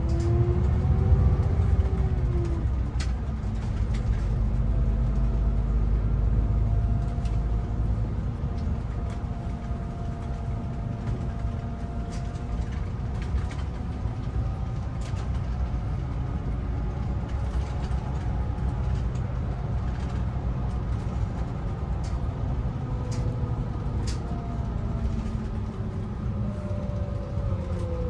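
A bus running along the road, heard from inside the cabin: a steady low rumble of drivetrain and tyres. A whine falls and rises in pitch near the start and again near the end as the speed changes, with scattered light clicks and rattles.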